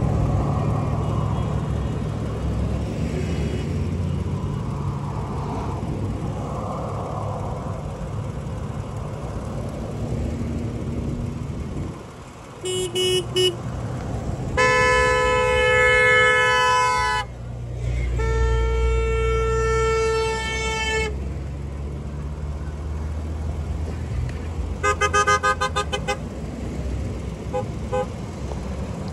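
A line of cars and pickup trucks driving past, engines and tyres running steadily, with car horns honking: a quick double toot just before halfway, two long held blasts right after, then a rapid run of short beeps near the end.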